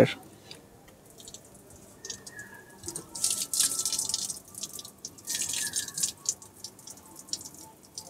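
Water poured onto a crinkled aluminium-foil air-conditioner cover, splashing on the foil and dripping off its edge, in several spells of a second or so, with scattered single drips between.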